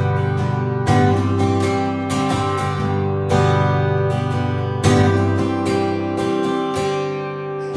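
Acoustic guitar strumming chords in the song's closing bars after the last sung line, a strum every second or so, fading near the end.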